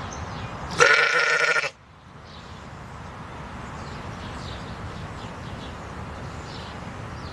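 An animal's single loud call, lasting about a second at one held pitch, over a steady background hiss with faint short high chirps.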